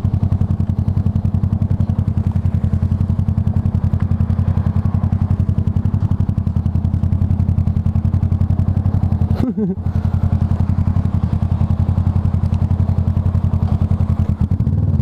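Kawasaki ER-6n parallel-twin motorcycle engine running at a steady, unchanging speed, heard loud through the helmet-mounted camera. It drops out briefly about nine and a half seconds in.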